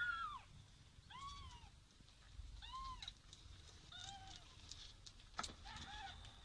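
Newborn kittens mewing: about five short, high-pitched mews, each rising and falling, spaced a second or so apart, with a single click about five seconds in.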